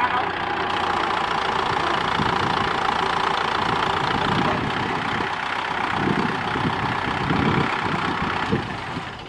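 Farm tractor's diesel engine idling steadily, fading away near the end.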